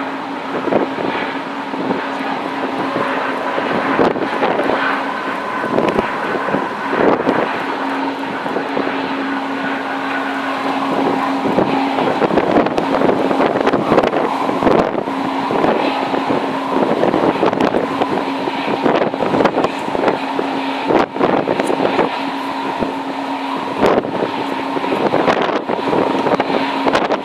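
Airbus A330-300's Rolls-Royce Trent 700 turbofans running near idle as the airliner slows and taxis after landing: a steady hum with a higher whine. Wind buffets the microphone throughout, with frequent crackling gusts.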